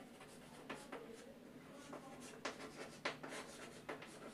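Chalk scratching on a blackboard as a word is written by hand: a run of short, faint, irregular strokes.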